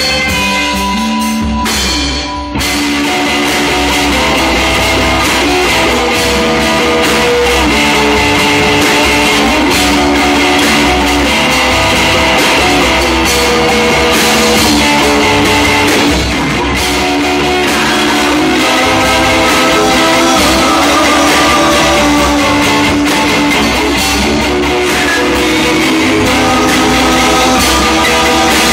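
Live rock band playing: electric guitars, bass guitar and drum kit. There is a brief drop about two seconds in before the full band carries on.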